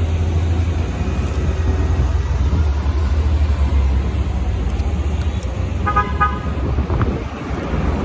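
Wind buffeting the microphone over street traffic, a heavy uneven rumble, with a short vehicle horn toot about six seconds in.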